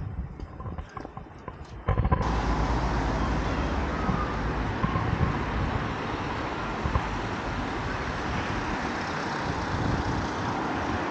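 Faint footsteps on the pavement for about two seconds, then an abrupt switch to a loud, steady hiss of street traffic noise.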